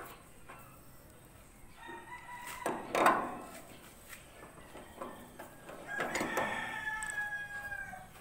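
A rooster crowing twice: a shorter crow that peaks loudest about three seconds in, then a longer crow with a drawn-out, slightly falling final note near the end. A few light metal clicks come from the pipe wrench on the mixer's axle nut.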